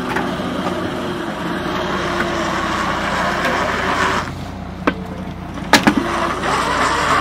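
Lobster boat's engine running with the hydraulic trap hauler pulling in the trap line, a steady hum and whine. A few sharp knocks come a little past the middle.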